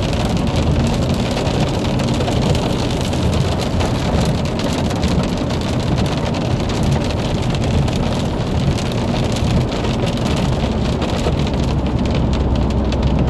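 Rain and hail falling on a car: a dense, steady hiss full of small ticks, with a low rumble underneath.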